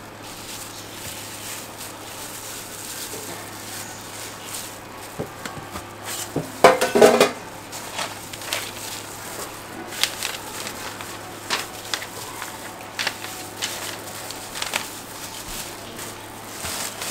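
Food-stall clatter of metal utensils on a steel griddle tray: scattered sharp clicks and knocks, with a louder rattling clatter about seven seconds in, over a steady low hum. A paper bag rustles near the end.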